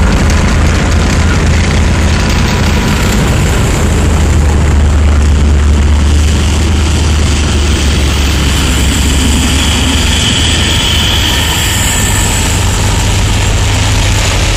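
Engines of WWII military tracked vehicles and trucks driving past in a convoy, a loud, steady low drone that eases slightly about halfway through.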